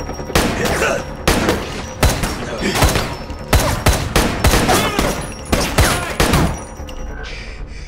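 Fight-scene sound effects: a fast run of loud, sharp bangs, roughly two a second, each ringing briefly, that stops about six and a half seconds in.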